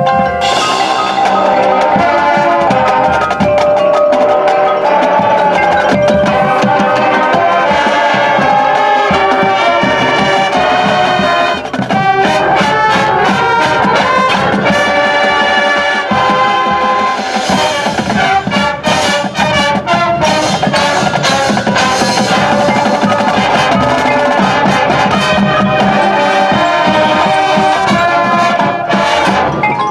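High school marching band playing its field show, brass horn line with the percussion section and front-ensemble mallet instruments.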